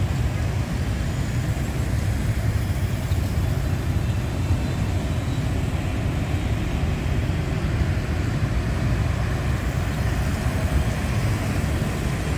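City street traffic, mostly motorbikes and cars passing through an intersection: a steady, low rumble with no single vehicle standing out.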